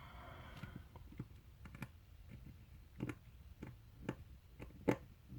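Small, sharp clicks and taps at irregular intervals as tiny metal and plastic parts of an HO-scale model locomotive are handled and fitted with hand tools, with a brief scraping sound at the start; the loudest click comes near the end.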